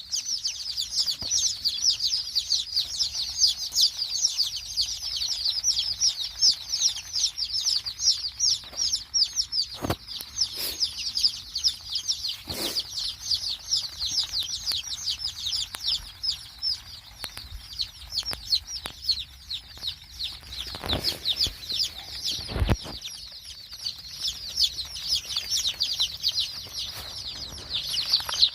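Many chicks peeping together without pause: a dense chorus of short, high chirps that each slide downward in pitch, overlapping one another. A few separate knocks stand out, around ten seconds in and again a little after twenty seconds.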